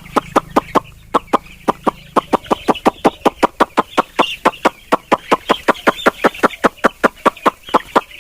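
A flock of young broiler chicks peeping steadily, over a fast, even series of sharp taps or clicks, about five a second.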